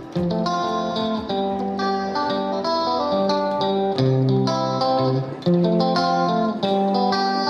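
Background music led by a plucked guitar playing a melody of distinct notes at a steady level.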